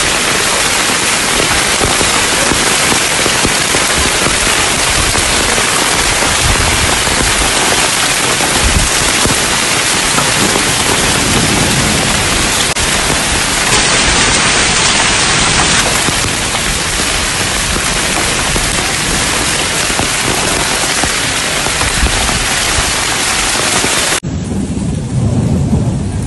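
Heavy rain falling on an open marble courtyard: a loud, steady hiss of downpour. About 24 s in the sound cuts abruptly to a duller, lower-pitched rain sound.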